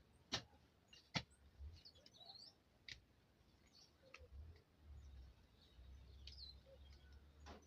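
Faint birds chirping, with a few sharp clicks at irregular intervals over a low hum.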